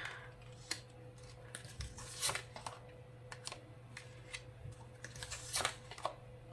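Tarot cards being handled on a table: scattered light clicks and short rustles of cards being moved and laid down, over a faint steady hum.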